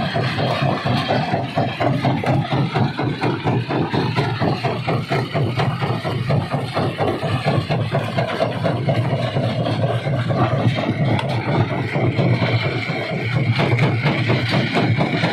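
Rock crusher running: a steady low engine hum under a continuous, rapid clatter of stone being broken.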